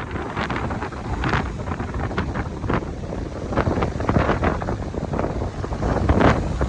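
Strong gusting wind buffeting the microphone: a continuous low rumble with rapid, irregular gusty bursts.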